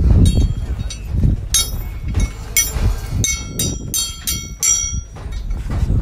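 Metal striking steel tube scaffolding: sharp ringing clinks and clanks, with a quick run of about five strikes in the second half.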